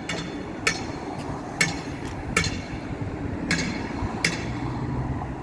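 Five sharp taps with a brief ring, about one a second, unevenly spaced, over steady background noise.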